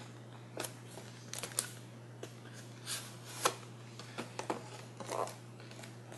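Perfume box packaging being handled and opened by hand: scattered light clicks, taps and rustles of cardboard and paper, over a steady low electrical hum.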